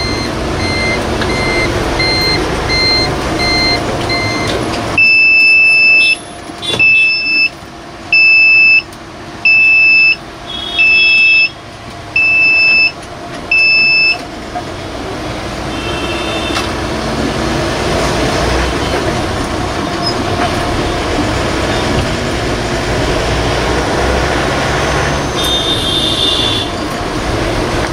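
Bus cabin alarm beeping over the bus's running and road noise: first short beeps about twice a second, then from about five seconds in louder, longer beeps about once a second, seven in all, which stop about halfway through. The loud beeping is the bus's door-open alarm. The vehicle rumble dips while the beeping sounds and then picks up again.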